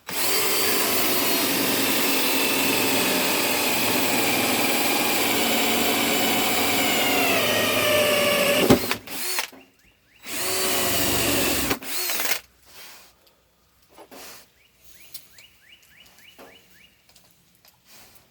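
Power drill running at full speed for about eight seconds, its whine sagging in pitch near the end as it comes under load. It stops with a click, then gives a second burst of about a second and a half and a short blip, followed by faint clicks and knocks.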